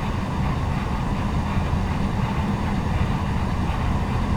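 Steady noise inside an Embraer 170 airliner's cockpit on short final approach: rushing airflow and engine noise with a deep rumble, even throughout with no distinct events.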